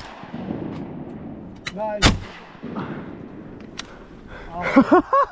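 A single shotgun blast about two seconds in, sharp and loud with a short echo after it. Loud voices come near the end.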